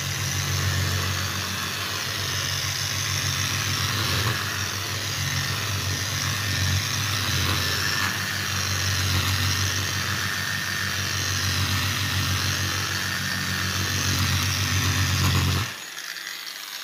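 Electric angle grinder with a polishing pad running steadily as it buffs a wet vanity countertop at 800 grit, the final polishing stage for a repaired scratch. The motor cuts off near the end.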